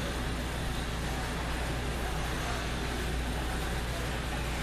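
Steady background noise of an indoor ice rink: an even low hum with a broad hiss over it, and no distinct puck, stick or skate sounds standing out.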